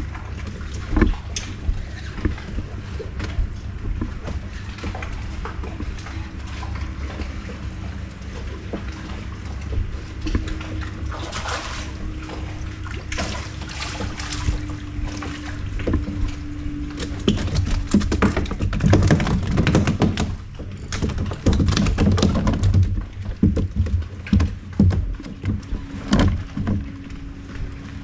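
Boat motor running steadily with a low rumble and a faint hum, water sloshing, and scattered knocks and rattles, busiest in the second half.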